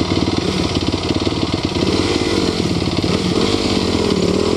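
Off-road motorcycle engine running steadily, its revs rising and falling from about halfway through as the throttle is worked.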